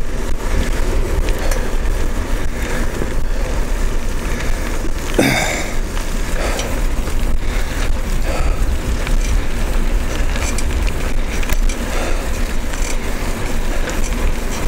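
Steady wind rumble buffeting the microphone as a tandem bicycle is ridden along a paved street, with tyre and road noise underneath. A brief sharp noise cuts through about five seconds in.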